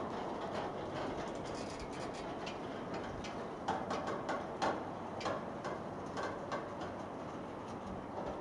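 Freight train's container wagons rolling past on the rails: a steady rumble with irregular clicks and clanks, most of them bunched in the middle.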